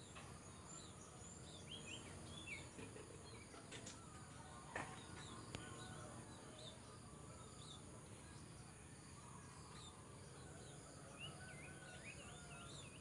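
Near silence: faint outdoor ambience with a few small bird chirps in two short runs, a steady high-pitched hiss, and two soft clicks around the middle.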